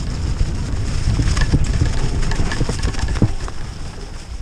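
Mountain bike running fast down a leaf-covered dirt trail: tyres rolling through the leaves, heavy wind rumble on the mounted camera's microphone, and the bike rattling with sharp knocks over bumps and roots. The knocks come thickest about one and a half to three seconds in.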